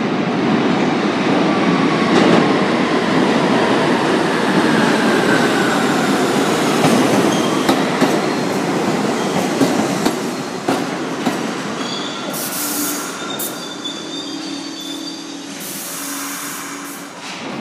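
R62A subway train pulling into the station and braking to a stop: loud rumble of steel wheels on the rails with high wheel and brake squeal gliding down in pitch, fading as it slows. Two short hisses once it is nearly stopped, about twelve and sixteen seconds in.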